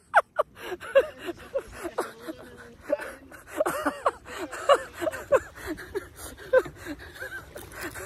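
A man laughing heartily in a long run of short bursts of voice, rising and falling in pitch, two or three a second.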